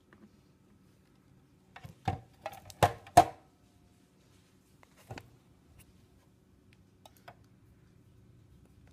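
A spatula knocking against a plastic food processor bowl while scraping out beet purée: a quick run of four or five sharp knocks about two to three seconds in, one more knock about five seconds in, and two faint ticks near the end.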